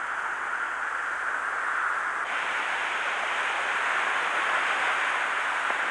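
Steady rush of surf breaking on a shingle beach, getting louder a little over two seconds in.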